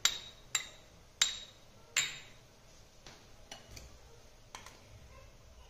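A steel spoon tapping against stainless steel bowls while crushed garlic is knocked off it: four sharp, ringing metallic clinks about every half second to start, then a few fainter clinks.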